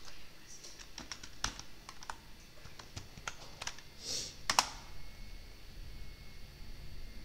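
Typing on a computer keyboard: irregular key clicks, with a louder pair of clicks about four and a half seconds in.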